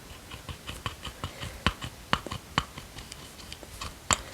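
Fingers handling and tapping a plastic shower gel bottle: a run of irregular small clicks and taps, a few a second, with a sharper click near the end.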